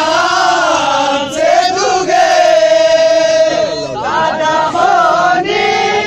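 A group of men singing a Balti ghazal together, loud and in unison, with long held notes.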